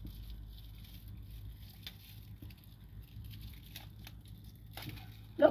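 Soft rustling and crinkling of a cat wand toy's tinsel pom-poms as they are dragged over a porch mat and batted by a cat, with a few light ticks. A brief, loud voice-like sound near the end.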